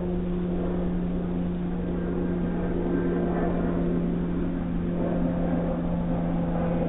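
Steady mechanical hum: one constant low tone with overtones over a rough noise, heard through a doorbell camera's narrow-band microphone.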